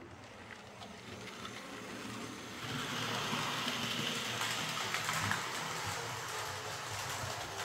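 Hornby Class A4 OO-gauge model locomotive with a tender-mounted motor running along the layout track: a steady motor whirr with wheel-on-rail rattle. It grows louder about three seconds in.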